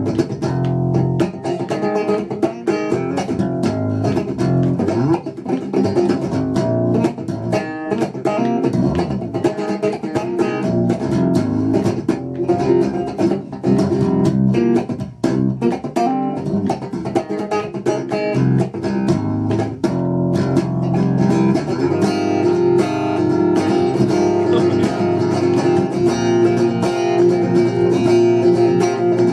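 Spector electric bass strung with piccolo bass strings (D'Addario EXL280), played with the fingers as a busy run of quick plucked notes up and down the neck. In the last several seconds it settles into longer, ringing notes and chords.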